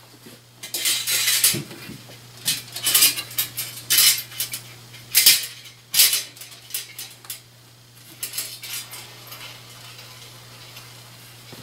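Stainless-steel pinwheel blades clinking and rattling as the pinwheel is handled and its shaft is fitted into a wooden support, in a string of sharp metallic clinks with a few lighter ones later on.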